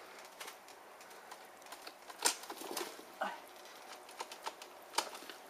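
Scattered light knocks and clicks as a dirt bike is heaved about by hand on a muddy bank, with a sharper knock about two seconds in and another near the end; the engine is not running.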